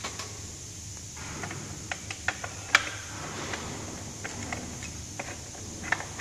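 Parts being handled and fitted during disassembly of a robot: a scatter of light clicks and taps, the sharpest about three seconds in, over a steady low hum.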